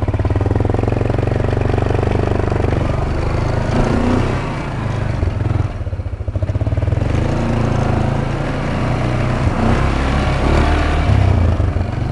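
Four-wheeler (ATV) engine running under throttle, easing off about halfway through and then picking up again.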